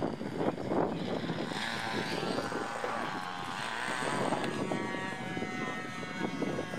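Electric radio-controlled model aircraft's motor and propeller running: a high whine of several tones sets in about a second and a half in, wavering a little in pitch before it steadies.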